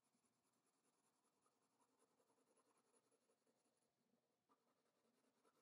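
Very faint scratching of a soft pencil on paper, laying down crosshatching strokes to shade a drawing.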